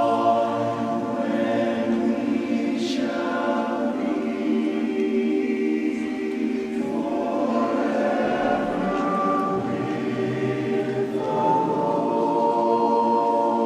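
A large men's barbershop chorus singing a cappella in close harmony, holding sustained chords that change about seven and again about eleven seconds in. The singing carries the long reverberation of a large stone cathedral.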